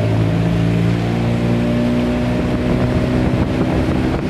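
Motorboat engine running at a steady speed, a constant hum whose pitch holds level.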